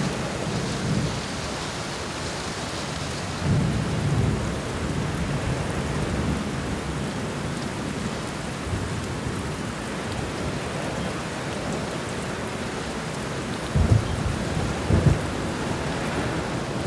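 Heavy rain pouring steadily, with thunder: a low rumble a few seconds in and two sharper booms of thunder near the end.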